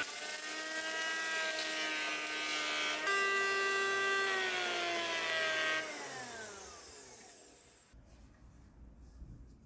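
Restored Makita 110 V electric planer running with a steady high motor whine whose pitch dips and recovers, as if under load from cutting, near the start and again about three seconds in. About six seconds in it is switched off and the whine falls in pitch as the motor and cutter drum spin down, fading out within two seconds.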